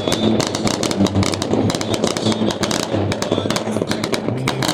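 A fireworks finale barrage: a dense, unbroken stream of bangs and crackles, many shots each second.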